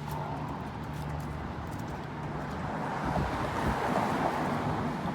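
Street traffic: a vehicle passing, its noise swelling to loudest about four seconds in, over a steady low hum.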